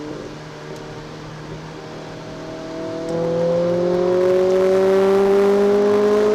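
Renault Clio RS 200's 2.0-litre four-cylinder engine heard from inside the cabin, running steadily at first, then about three seconds in getting louder as the car accelerates, its pitch climbing slowly and evenly.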